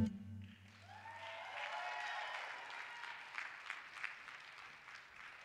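Audience applause, fairly faint, with a few voices cheering, rising just after the song's last note fades.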